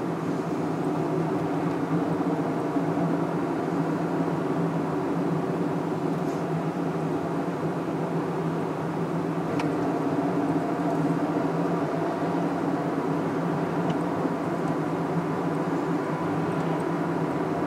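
Car engine and road noise heard from inside the cabin while driving, a steady hum with a few faint clicks.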